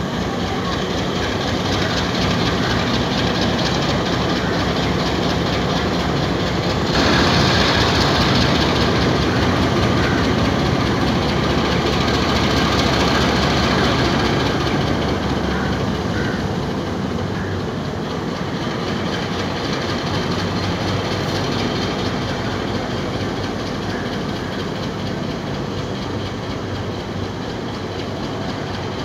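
Diesel locomotive engine running with a steady low throb as it slowly moves a passenger train along a station platform. A louder hiss joins about seven seconds in and fades away over the next several seconds.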